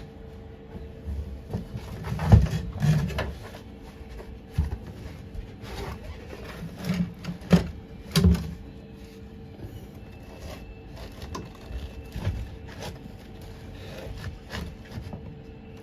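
A handful of short, irregular tack welds from a Lincoln wire-feed welder joining a steel repair panel into a VW Beetle floor pan, each a brief crackle, mixed with knocks and clicks; the loudest come about two to three seconds in and again around seven to eight seconds.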